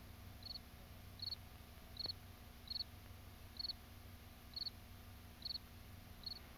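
A cricket chirping faintly, one short high chirp about once a second, evenly spaced, over a low steady hum.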